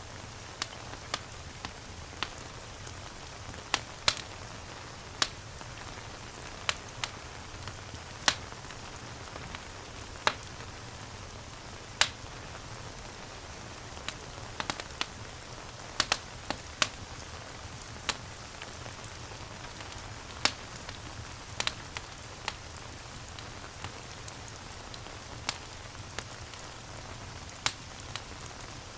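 Steady rain hiss with a crackling wood fire: sharp, irregular pops and snaps come about once a second over the rain.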